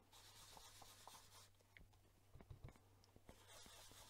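Faint rubbing and light scratching of a small foam sponge wedge working ink onto cardstock in circular strokes, ink-blending over an embossed design, with a few soft ticks over a low steady hum.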